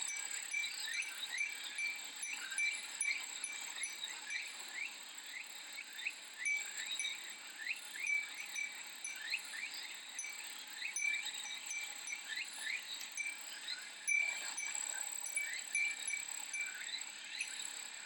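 A Japanese fūrin wind chime tinkles over and over, its strikes landing irregularly, above a steady high-pitched drone of cicadas. Many quick short chirps run through it as well.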